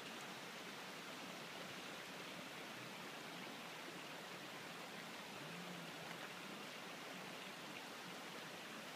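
Steady, even outdoor background hiss with no distinct events, like distant running water. A faint low hum shows briefly a little past halfway.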